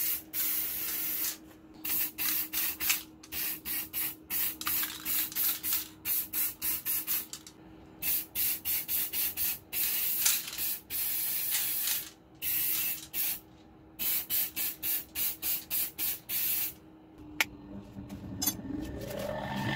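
Aerosol spray-paint can hissing in short blasts, mostly quick runs of two or three a second with a few longer sprays. Near the end a motor-driven abrasive wheel spins up with a rising whine.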